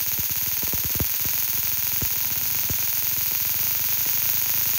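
Electronic buzz-coil ignition unit firing a spark plug on a bench supply: an irregular run of sharp spark cracks, several a second, a few louder than the rest, over a steady hiss. The spark rate follows the supply voltage, which is being turned up at about 4 volts.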